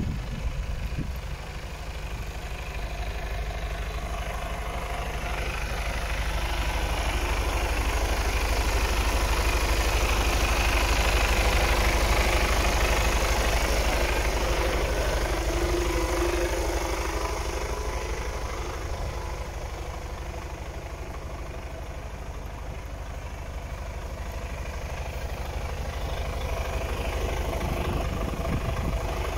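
Mercedes-Benz Actros 1843 truck's diesel engine idling steadily. It swells louder around the middle and fades again.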